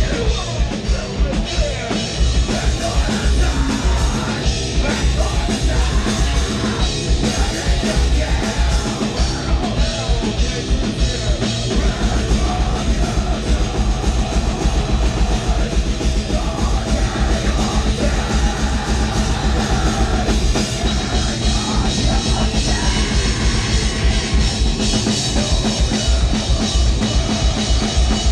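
Live heavy rock band playing loud: yelled vocals over distorted electric guitar, bass guitar and a full drum kit, with fast low kick-drum pulses throughout.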